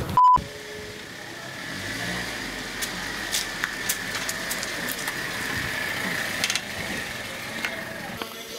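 A short, loud single-tone bleep, then a car engine running steadily with a few light clicks over it.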